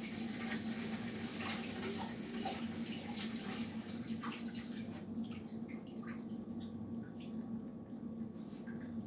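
Chicken breasts simmering in gravy in a frying pan, a steady bubbling with many small pops, over a steady low hum.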